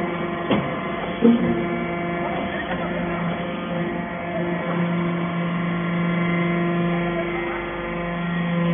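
Hydraulic power unit of a metal-chip briquetting press humming steadily, with two short knocks in the first second and a half.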